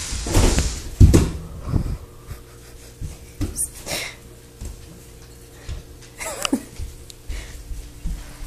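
Breathy vocal sounds and short squeals from a toddler, loudest in the first two seconds, with a falling squeal about six seconds in, over a faint steady hum.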